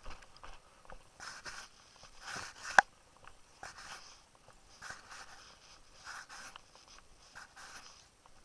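Footsteps of a walking hiker, a regular crunching and scuffing about twice a second, with clothing rustle, and one sharp click near the middle.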